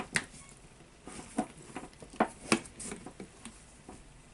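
Scattered sharp metallic clicks and light scrapes from a screwdriver and small steel parts being worked on a rotary hammer drill's tool holder, with the loudest clicks a little past the middle.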